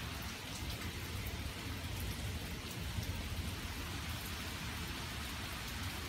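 Rain falling steadily during a thunderstorm, with scattered drops ticking and a steady low rumble underneath.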